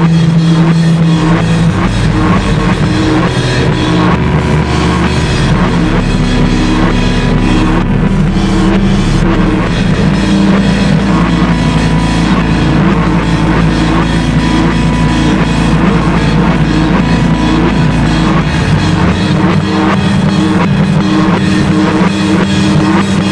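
Loud harsh noise industrial music: dense distorted noise over sustained low drones that shift pitch every few seconds, with a repeating pattern running through it.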